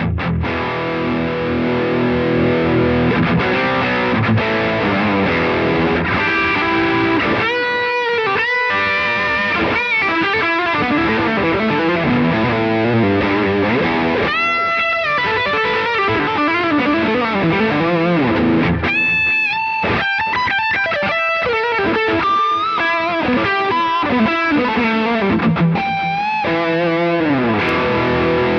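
Electric guitar driven hard through a Wampler Pantheon overdrive into an AMT Pangaea CP100 IR loader with a Celestion cabinet impulse response, recorded direct. Distorted chords and lead lines with bent notes, ending on a held chord that dies away.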